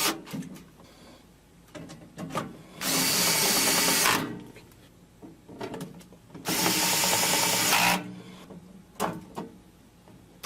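Small drill driver running in two steady bursts of about a second and a half each, driving set screws in to secure a controller's front panel. Faint handling clicks fall between the bursts.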